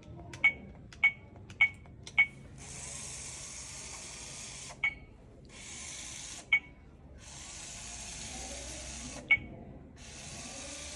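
Blue-Bot floor robot being programmed and run: four quick beeps as its direction keys are pressed, then its motors whir in runs of one to two seconds, with a short beep ending each move.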